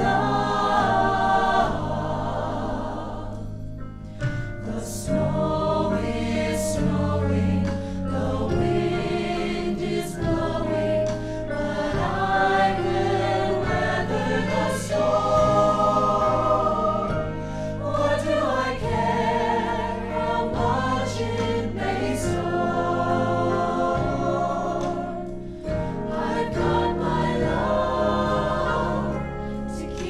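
Mixed choir of teenage boys' and girls' voices singing together in harmony, holding long notes that change chord every second or two.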